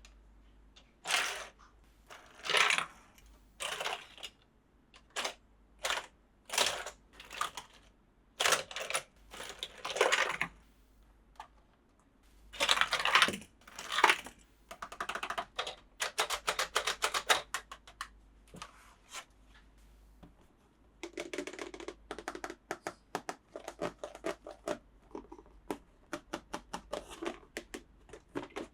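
Hands handling plastic toy parts and packaging: irregular clicks, snaps and crinkles, with a quick run of ticking about halfway through and softer taps near the end.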